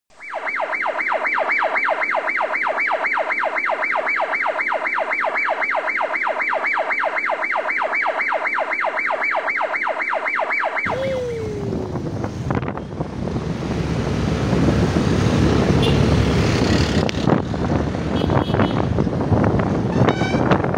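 A loud pulsing siren-like tone, about four pulses a second, cuts in from silence and stops suddenly about eleven seconds in. After it come wind buffeting the microphone and road noise from a motor scooter riding through traffic, with a short falling tone just as the change comes.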